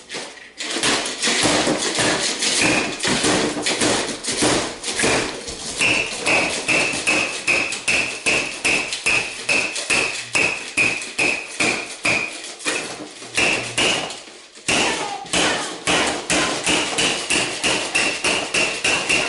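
Rapid repeated blows of a plastic toy hammer, about two a second, many of them with a short high squeak. The blows break off briefly a little past the middle, then resume.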